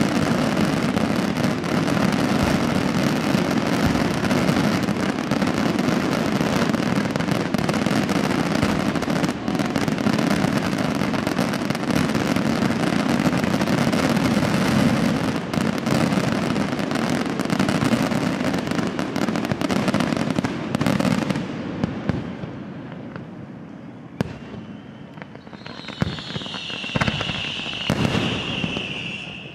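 Fireworks display at full barrage: a dense, continuous rattle of shell bursts and crackling. It thins out to a few scattered bangs about twenty seconds in. Near the end a high whistle glides slowly down in pitch over a couple of seconds.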